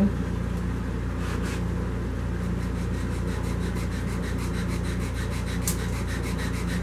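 Lathe-mounted sanding drum spinning steadily, with a wooden tankard handle held against it, sanding a curved indentation into the handle's end so it fits around the mug. The lathe's hum runs under the rubbing of wood on sandpaper.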